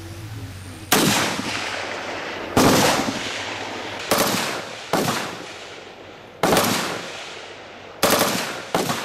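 Seven single shots from military rifles fired one at a time at uneven intervals of roughly one to two seconds, each ending in a rolling echo that dies away; the last two come close together near the end.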